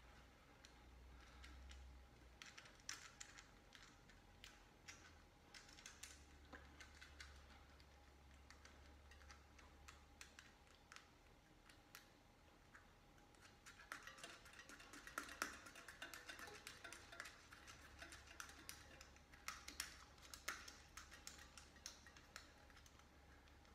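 Faint, irregular clicks and rubbing of a bicycle tire bead being pushed by hand onto the wheel rim, busier in the second half.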